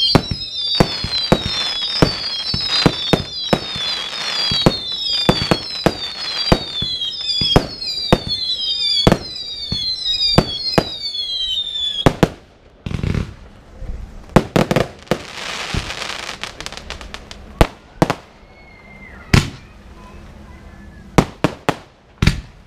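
Fireworks display: a rapid series of sharp bangs from bursting aerial shells, overlaid for the first twelve seconds by more than a dozen whistles in quick succession, each falling in pitch. After that come two short hissing bursts and scattered, sparser bangs.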